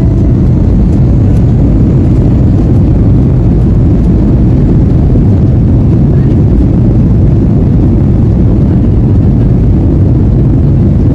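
Airbus A320 takeoff roll heard from inside the cabin: the jet engines at takeoff power and the wheels on the runway make a loud, steady, deep rumble.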